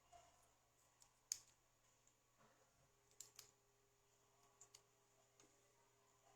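A few faint, sharp plastic clicks and light taps, scattered irregularly, from a videocassette and its small parts being handled during a repair; the loudest click comes about a second in.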